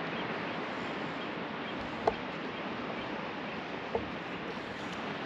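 Steady hiss and wash of surf breaking on a beach, with two brief sharp sounds about two seconds apart.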